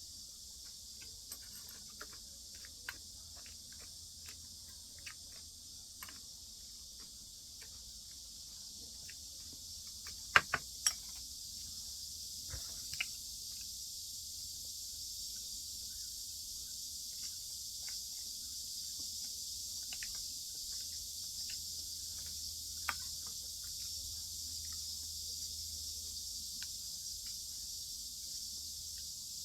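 Eating sounds: scattered light clicks of chopsticks or a spoon against dishes, with a few sharper clacks about ten seconds in, over a steady high hiss.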